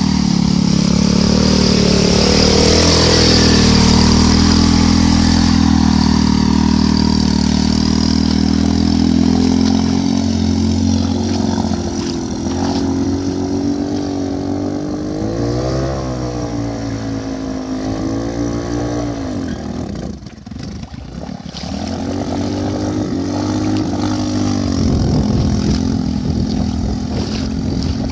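Small engine of a homemade two-wheel-drive motorcycle running under load as it pushes through shallow water, its pitch rising and falling with the throttle. It eases off briefly about two-thirds of the way in, then picks up again. Water splashes loudly off the wheels in the first few seconds.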